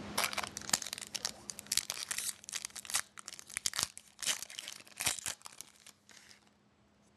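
Foil trading-card pack wrapper being torn open and crinkled: a quick run of crackles and rustles that stops about six seconds in.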